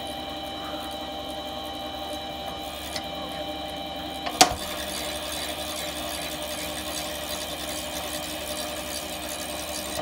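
Chinese mini metal lathe running, the chuck spinning, with a steady whine from its motor and gears. A sharp click sounds about four and a half seconds in.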